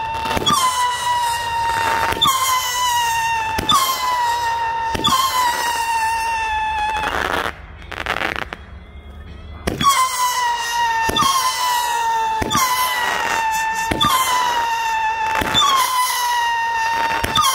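Shogun 'Howler Monkey' 22-shot firework cake firing whistling shots in quick succession. Each starts with a sharp launch bang, then a steady high whistle that rises briefly before holding its pitch. A new shot comes about every second and a half, with a pause of about two seconds around the middle.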